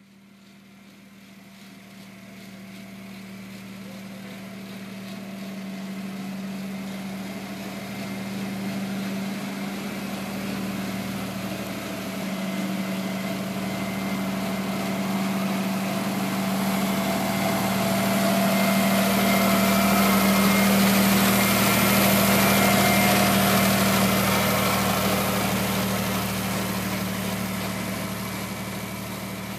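1967 Ford 3000 tractor's three-cylinder engine running at a steady speed as the tractor drives toward and close past, growing louder to a peak about two-thirds of the way through, then easing off slightly.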